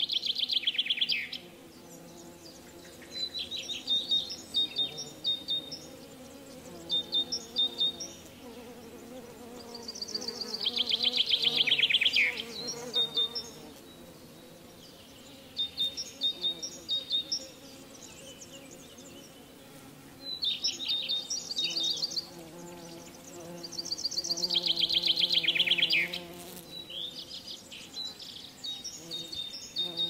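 Birdsong in repeated bursts of rapid chirps and trills every few seconds, some ending in a falling sweep, over a steady low buzzing hum.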